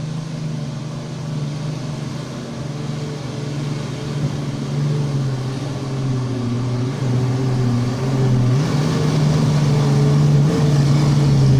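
Off-road 4x4's engine pulling hard up a deep, muddy climb, growing louder as it nears. Its revs dip about seven seconds in and rise again a moment later.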